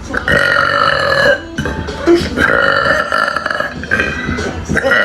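A woman's loud burps, three long ones in a row, each held for about a second with short breaks between.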